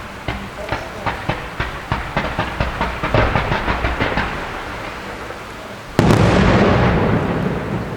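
Fireworks going off: a rapid run of sharp cracks, about four a second, then a sudden loud bang about six seconds in with a crackling, rumbling tail that fades over a couple of seconds.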